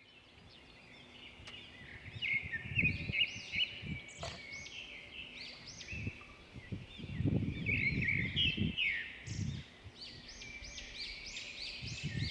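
Small songbirds chirping in quick, repeated arched notes, several calls overlapping, fading in at the start. Intermittent low rumbles come and go beneath the birdsong.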